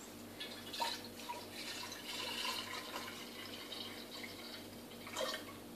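Water poured from a plastic measuring jug through the lid opening into the bowl of a Cook'in cooking robot: a splashing trickle that starts about a second in and tapers off near the end.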